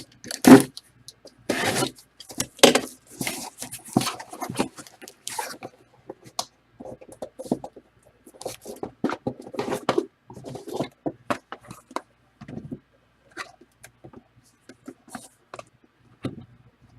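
Irregular crackling, rubbing and scraping of cardboard boxes and plastic wrapping being handled, busiest for the first several seconds and then in sparser short bursts.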